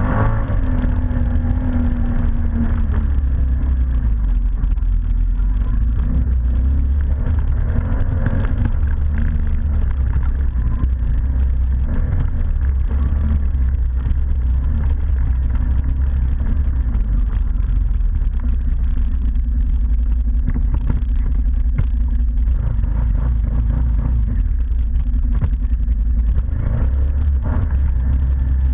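ATV engine running steadily under way, with a strong low rumble throughout and some changes in pitch as the throttle varies.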